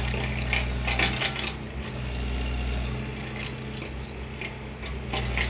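Excavator's diesel engine running steadily, with sharp metallic clinks and clatters in the first second and a half and again near the end.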